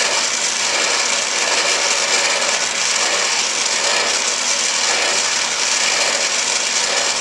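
Acetylene torch flame burning with a steady hiss, heating a rusted-on hydrant fitting toward red heat to loosen it.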